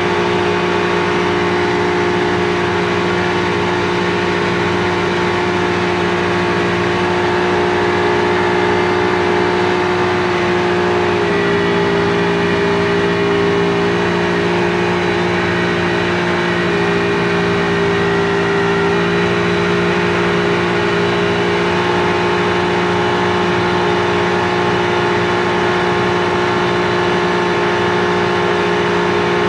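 Speedboat engine running steadily at cruising speed, heard from on board, its pitch shifting slightly now and then.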